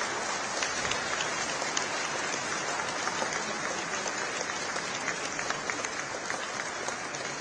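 An audience applauding: many hands clapping at once in a dense, steady stream of claps, easing slightly near the end.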